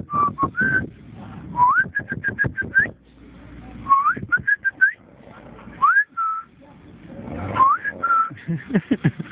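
Whistling: short rising glides up to a held note, repeated about every two seconds, some broken into quick choppy pulses, with low rattling noises between them.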